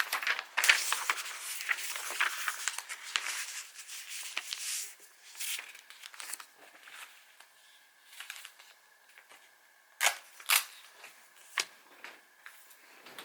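Packaging being handled while packing orders: dense crinkling and tearing for the first few seconds, then sparser rustles, and a few sharp clicks near the end.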